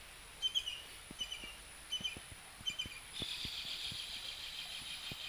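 Forest bird chirping in short bursts, about six times, then from about three seconds in an insect's steady, high buzz starts up and carries on.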